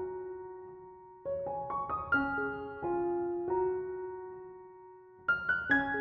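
Background piano music: a gentle melody of notes struck and left to fade, with a new phrase starting about a second in and another near the end.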